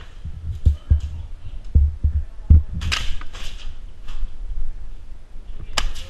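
Dull low thumps of footsteps and gear knocking against a body-worn camera, several in the first two and a half seconds, with two sharp cracks, one about three seconds in and a shorter one near the end.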